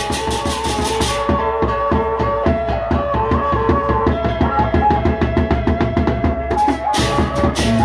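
Gendang beleq ensemble playing: the large double-headed barrel drums keep a steady beat of about four to five strokes a second under a melody line. Clashing hand cymbals come in loudly at the start and again near the end.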